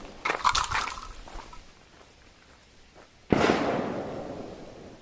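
A brief metallic clatter near the start, then a single blast from a Stevens Model 94 single-shot shotgun a little over three seconds in, with its report echoing away over about a second and a half.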